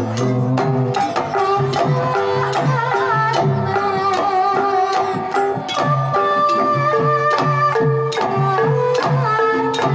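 Banyumasan gamelan ensemble playing a tayub gending: kendang drum strokes over ringing metallophones and kettle gongs, in a steady, busy rhythm.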